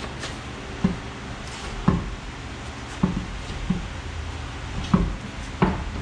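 Tire and alloy wheel being hung back on a 2006 Chevrolet Trailblazer's rear hub, knocking against the hub and wheel studs as it is worked into place: six dull clunks about a second apart.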